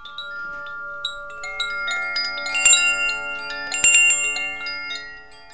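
Chimes ringing: many struck tones that sound one after another and hang on, overlapping, with two louder clusters of strikes about halfway and two-thirds of the way through.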